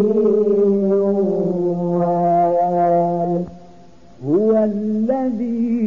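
Qur'an recitation: a voice chants long, drawn-out vowels on a steady pitch, breaks off about three and a half seconds in, then comes back with a rising glide into another held note.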